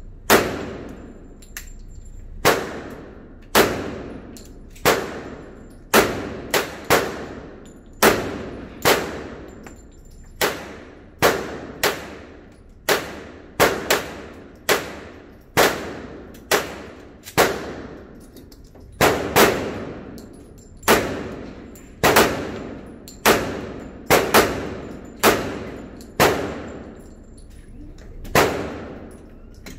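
Pistol shots in an indoor range: a steady string of about one shot a second, with a few quick doubles, each a sharp crack followed by an echoing tail off the range walls.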